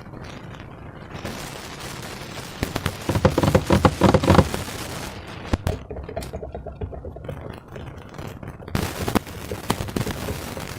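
Slime being squished and worked by hand, with a dense crackling and popping of trapped air. It is loudest a few seconds in, with a sharp pop about halfway.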